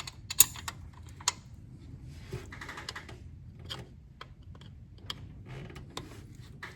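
Hand tools clicking and clinking on the valve gear of a Case 770 diesel engine, with scattered sharp taps and a short run of quick fine clicks and rubbing about halfway through, as a tappet that was set too tight is loosened.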